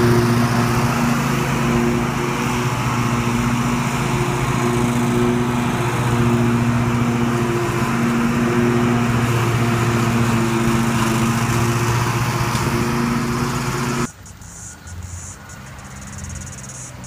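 Grillo Climber MD22 ride-on mower running steadily under load as it drives and cuts grass, a loud, even engine hum. About 14 seconds in it cuts off suddenly, leaving a much quieter background with faint, repeated high chirps.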